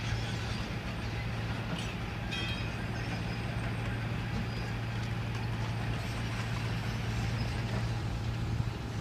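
Pile-driving rig's engine running steadily at idle, a constant low drone, while the hammer stands still. A short metallic clink about two and a half seconds in.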